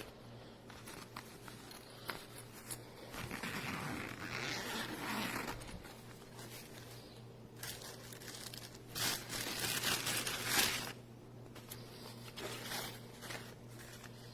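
Rustling, scraping handling noises, louder for a few seconds twice, over a faint steady hum.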